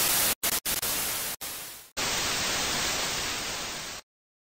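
TV static hiss, the white-noise sound effect of a glitching colour-bar screen. It breaks off in several short gaps during the first two seconds. It then resumes slightly duller, fades a little, and stops abruptly about four seconds in.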